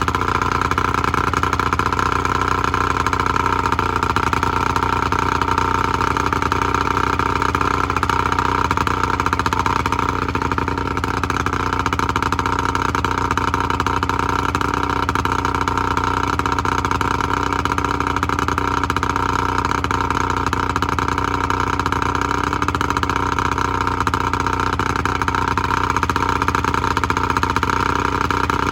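Evinrude 70 HP two-stroke outboard motor running steadily at idle on water muffs, out of the water, with a slight dip in level about eleven seconds in.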